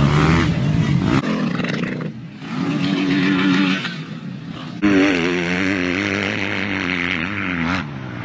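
Dirt bike engines revving and running, their pitch rising and falling, in a string of short clips cut together, with the sound changing abruptly about a second in and again around the middle.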